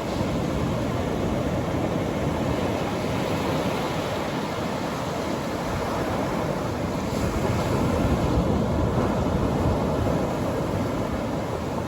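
Atlantic Ocean surf breaking on a sandy beach: a steady rushing wash of waves that swells louder about seven to nine seconds in.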